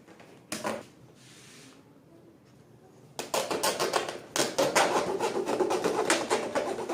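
Rapid scraping and rubbing on the washing machine's cardboard packaging, a quick run of short strokes starting about three seconds in, as the box is worked open by hand and knife.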